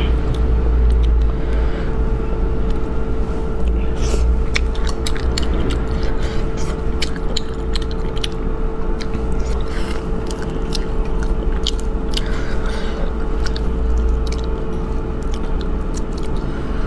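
Close-up eating sounds of a person chewing and tearing apart spicy rabbit heads by hand, with many irregular sharp wet clicks and smacks, over a steady low hum.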